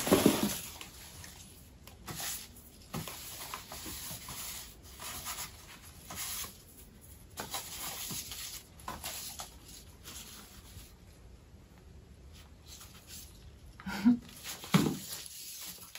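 Crinkling and rubbing of packaging and craft materials being handled by hand, in irregular strokes with a few light clicks and taps.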